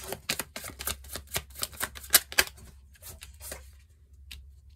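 Tarot cards being handled: a quick, irregular run of sharp clicks and slaps, loudest a little after two seconds, thinning out to a few scattered ticks near the end.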